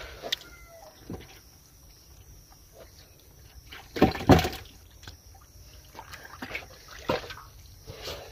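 Hands splashing and sloshing in shallow muddy water, in short irregular splashes, with a louder flurry of splashing about four seconds in.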